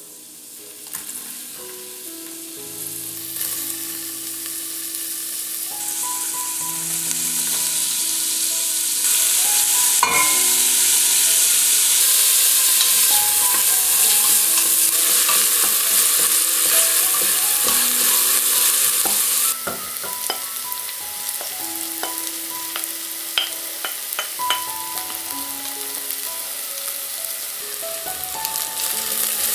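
Chopped onions, carrots and small green chillies sizzling in hot oil in a tall stainless steel saucepan while being stirred with a wooden spoon. The sizzle grows louder over the first several seconds, then drops suddenly about two-thirds of the way in. A few light clicks follow from the stirring.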